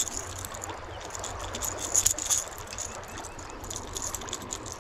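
The rattles inside a Rattletrap lipless crankbait clicking in quick clusters as a small hooked white bass shakes on the line, loudest about two seconds in, over the steady low rush of moving water.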